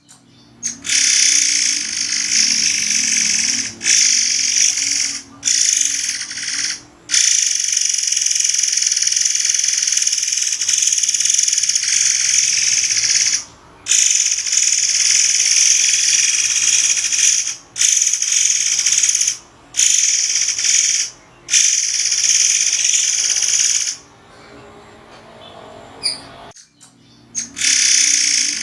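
Murai air bird singing high, piercing sharp notes (tembakan), in shrill stretches of one to several seconds broken by short pauses. It drops out for a few seconds near the end.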